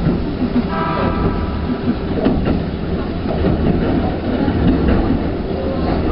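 Keikyu Airport Line electric train running past on the tracks: a steady loud rumble with wheels clacking over the rail, and a brief high-pitched tone about a second in.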